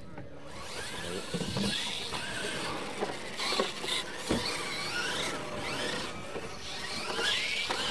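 Losi LMT radio-controlled monster trucks racing on dirt: their electric motors whine, repeatedly rising and falling in pitch with the throttle, with scattered knocks, the loudest about four seconds in.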